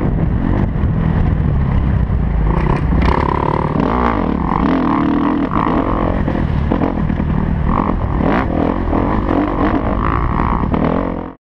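Single-cylinder four-stroke engine of a 2013 Kawasaki KX250F motocross bike, heard close up as it is ridden. The engine pitch rises and falls as the throttle opens and closes. The sound cuts off abruptly near the end.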